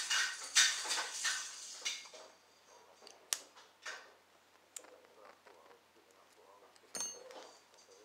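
Steel lock pick raking in the keyway of an old 5-pin Lips padlock: a dense metallic scraping and clicking for the first two seconds. Then a few separate sharp metal clicks, the last ringing briefly, as the picks are handled.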